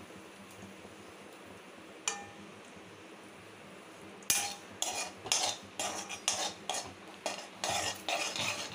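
Cashews frying in foaming ghee in a heavy pan, a faint steady sizzle with a single clink about two seconds in. From about halfway, a steel spoon scrapes and clatters against the pan in a quick run of strokes.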